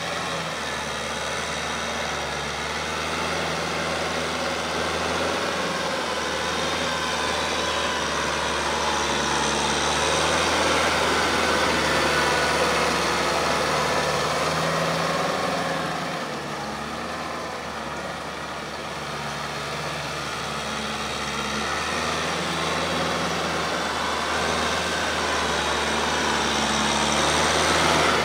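Kubota M6040SU tractor's diesel engine running steadily under load while it drives a rear rotary tiller through wet paddy mud. It grows louder about ten seconds in, eases off around seventeen seconds, and swells again near the end as the tractor comes close.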